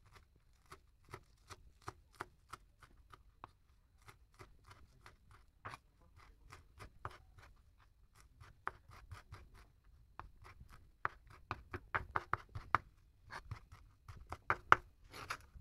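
Large kitchen knife chopping fresh coriander leaves on a plastic cutting board: a run of sharp knocks of blade on board, coming quicker and louder in the second half.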